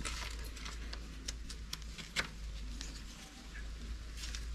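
Scattered light clicks and taps of metal parts and tools being handled while fitting a part, over a low steady hum.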